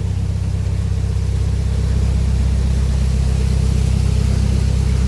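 Narrowboat's diesel engine running steadily with a low, even throb.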